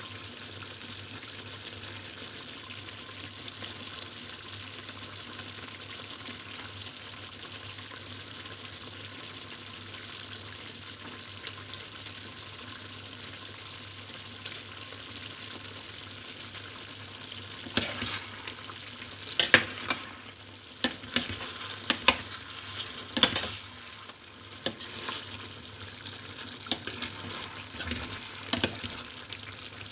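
Chicken mechado simmering in its sauce in a stainless steel pot, a steady bubbling hiss over a low hum. About two-thirds of the way through, a metal ladle starts stirring the stew, with sharp clinks and scrapes against the pot.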